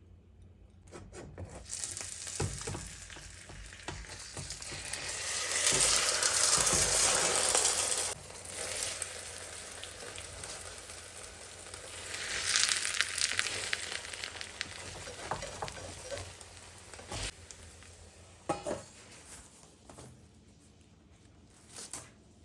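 Tava böreği (pan börek) frying in a pan: a sizzling hiss that swells loud twice and dies down toward the end, with scattered knocks of the pan and utensils.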